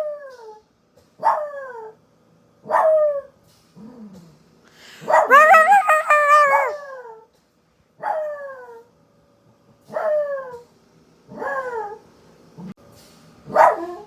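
Pet dog howling in bouts: a string of short calls that each slide down in pitch, with one longer howl about five seconds in. Twice a short, low, faint sound comes between the calls.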